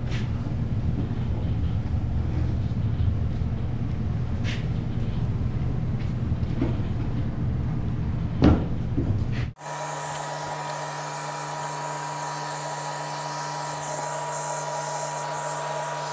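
Steady machine-like hum with a few faint clicks, then after an abrupt cut about nine and a half seconds in, a different steady running sound: a fixed hum with a higher whine and a wide hiss.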